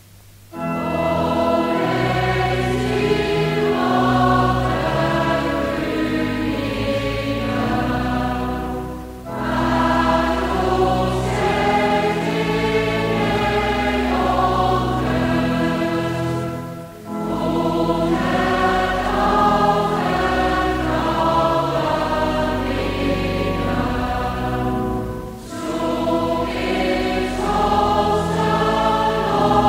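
Dutch church congregation singing a psalm in the slow, non-rhythmic style (niet-ritmisch), each note held long and even. A short break falls between sung lines about every eight seconds.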